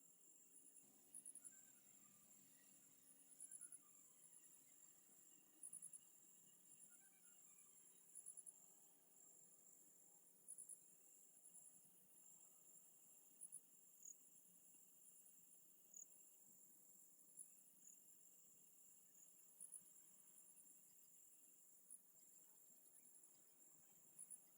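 Faint night insects, crickets chirping: short high-pitched chirps every couple of seconds over a steady high-pitched trill.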